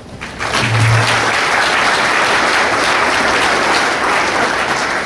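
Audience applauding steadily after a lecture ends, the clapping starting about a third of a second in.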